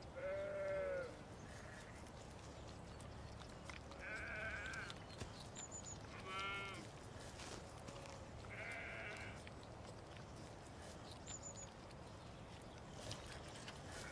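A lamb bleating four times, each bleat about a second long with a wavering, quavering pitch.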